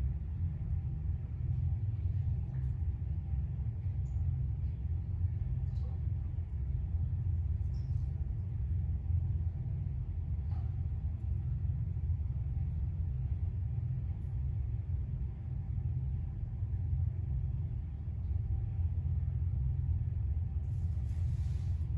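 Steady low rumble of background noise with no clear pitch, and a few faint small ticks above it.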